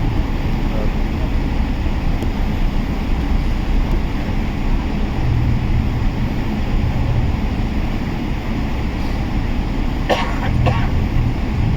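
Steady low rumble of jet engine and airflow noise inside a Boeing 777-300's passenger cabin, with a brief short sound about ten seconds in.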